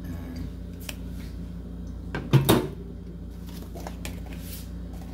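A single loud knock of an object being set down in the kitchen, about two and a half seconds in, with a few light clicks around it over a steady low hum.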